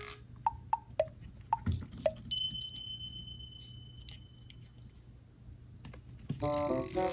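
A string of short, quick pop sound effects, then a bright, sustained ding that holds for about a second and a half. Background music with piano-like notes comes in near the end.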